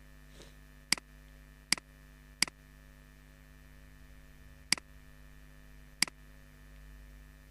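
Five sharp computer mouse button clicks, unevenly spaced, picking objects to trim, over a steady electrical hum.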